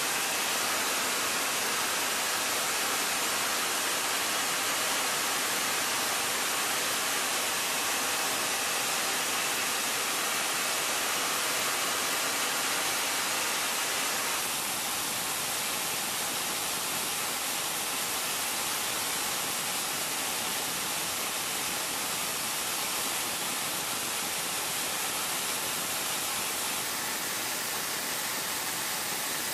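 Steady rushing hiss of in-flight cockpit noise inside an F-14B Tomcat, with airflow and engine noise blended into one even roar. It has no distinct tones or events and drops slightly in level about halfway through.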